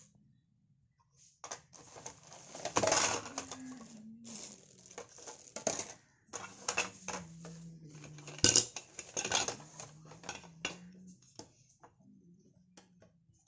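Stiff cardboard QR-code cards and stands and plastic wrappers being shuffled by hand on a glass counter: irregular rustling, crinkling and light clatters, loudest about three seconds and eight and a half seconds in.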